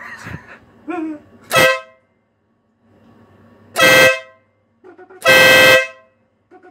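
A Stebel Nautilus compact electric air horn sounds three short blasts of one steady, very loud blaring note: about one and a half seconds in, about four seconds in, and a longer one from about five seconds in.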